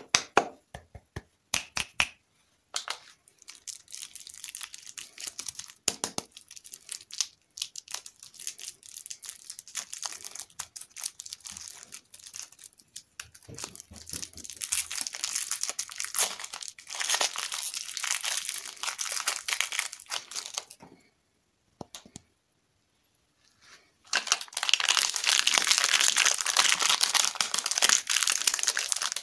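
Plastic candy wrappers being crinkled and torn open by hand. A few sharp clicks come first, then a long stretch of crackly crinkling. After a brief pause about three quarters of the way through, louder, denser crinkling follows.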